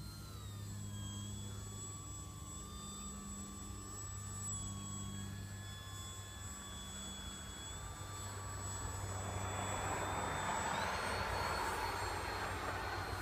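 Electric RC model plane's motor and propeller whining in flight. The whine drops in pitch about a second in and rises again near the end, as a propeller rush grows louder over the last few seconds.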